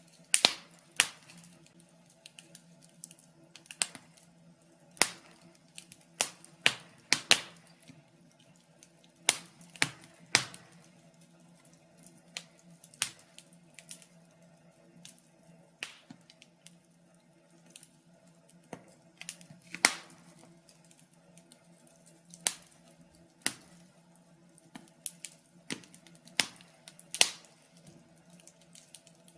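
Wood fire crackling in a fireplace: irregular sharp pops and snaps, about one a second, over a faint steady low hum.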